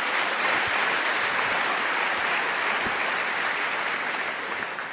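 Audience applauding a stand-up comedian's punchline, a dense steady clapping that begins to fade away near the end.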